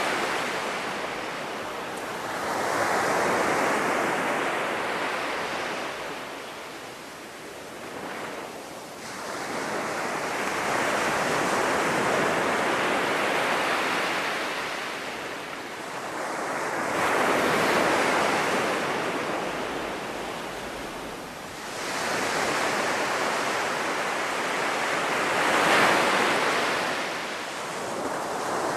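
North Sea surf breaking on a sandy beach: a steady wash of waves that swells loud for several seconds at a time and then falls back, over and over.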